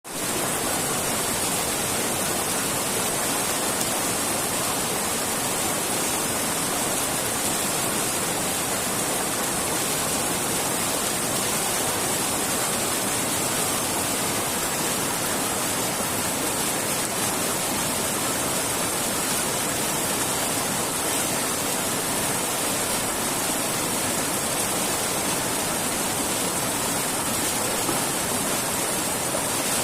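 Steady rushing noise of running water, even and unbroken, with a strong hiss at the top.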